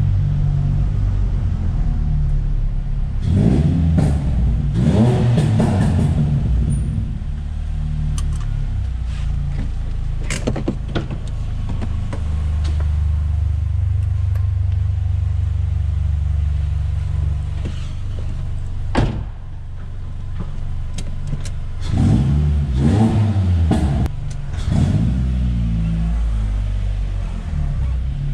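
Ford Fiesta ST Mk6's 2.0-litre four-cylinder engine running at low speed through a new aftermarket exhaust whose intermediate section and catalytic converter have been replaced. There are short blips of revs about 3 to 6 seconds in and again about 22 to 25 seconds in, and a few sharp clicks, the loudest about two-thirds of the way through.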